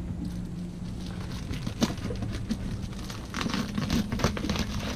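A knife cutting and picking at packing tape and plastic wrap on a cardboard box, making crinkling and a scatter of sharp clicks and scrapes, busiest in the second half. A steady low hum runs underneath.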